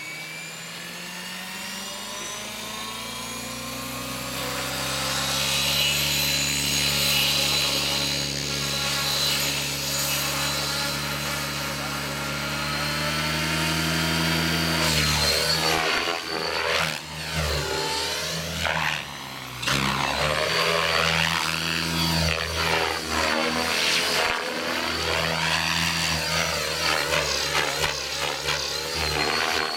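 Electric Align T-Rex 600 EFL Pro model helicopter spooling up on the ground, its motor whine and rotor hum rising slowly in pitch for about fourteen seconds. It then lifts off and flies, and the rotor sound swells and dips as it manoeuvres.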